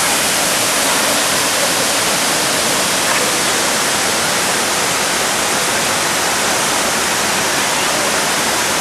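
Waterfall rushing steadily: loud, even noise of falling water.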